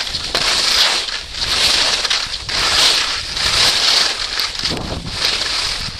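Skis carving down a groomed run: the edges scrape the snow in a hiss that swells and fades with each turn, roughly once a second, with wind buffeting the microphone.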